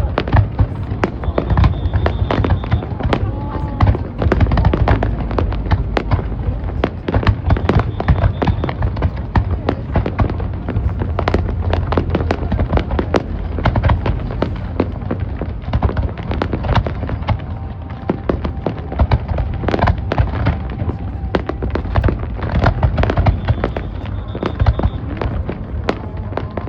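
Fireworks display: a dense, unbroken barrage of bangs and crackles over a low rumble, with a few brief high whistles.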